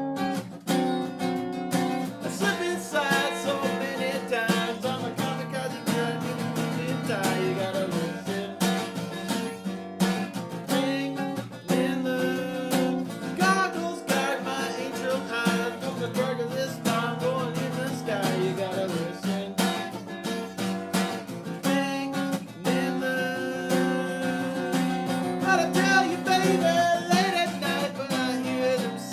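Solo acoustic guitar playing an instrumental lead part, picked melody notes over ringing low notes, with brief pauses about eleven and twenty-two seconds in.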